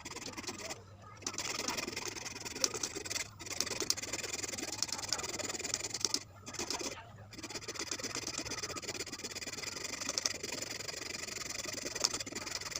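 Rapid scratchy rasping of a hand tool working wood, in runs of a few seconds broken by brief pauses, the longest pause about halfway through.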